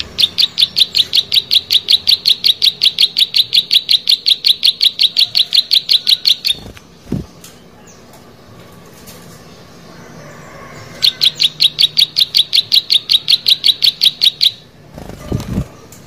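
Plain prinia (prenjak sawah) singing: two long runs of identical sharp, high notes repeated about six or seven a second, the first lasting about six seconds and the second starting about eleven seconds in. Brief lower sounds come in the gap and near the end.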